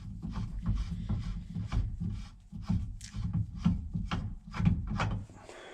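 Irregular clicks and rubbing scrapes of parts being worked by hand on a steering column, a few a second.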